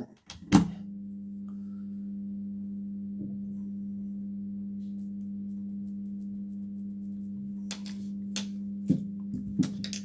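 A 230 V microwave oven transformer switched on with a click as it is plugged into the mains, then humming steadily. A few light knocks near the end.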